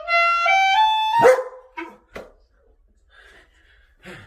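Clarinet playing a run of notes stepping upward in pitch, broken off about a second in by a loud dog bark, followed by a few shorter barks.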